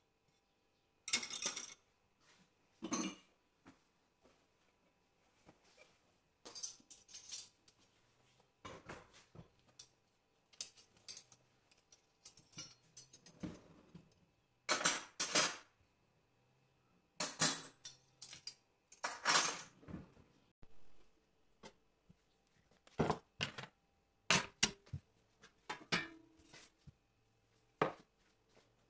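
Steel spoons clinking and rattling against each other as they are handled on a kitchen towel: a series of short, sharp clinks in irregular clusters with quiet gaps between.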